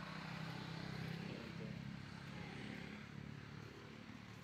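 Faint low engine hum of a motor vehicle, swelling about a second in and slowly fading, as if passing at a distance.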